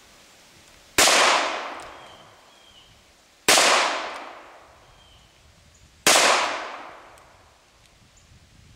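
Three shots from a Taurus Model 94 .22 Long Rifle revolver, about two and a half seconds apart, each trailing off over about a second and a half.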